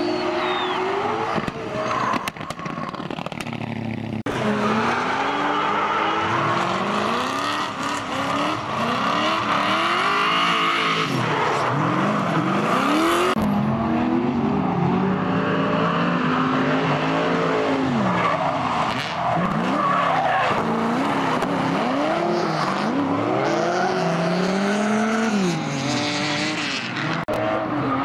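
Drift cars sliding sideways, their engines revving up and down over and over as the throttle is worked, with tyres squealing and skidding on the tarmac.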